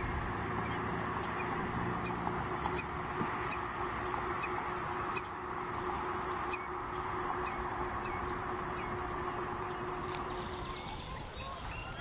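Killdeer chick peeping: a series of short, high peeps, a little more than one a second, with a slightly longer one near the end, over a steady faint hum.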